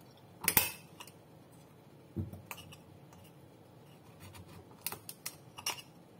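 Kitchen knife blade clicking and scraping against hard coconut shell as the flesh is pried out: a sharp click about half a second in, a dull knock about two seconds in, and a quick run of clicks near the end.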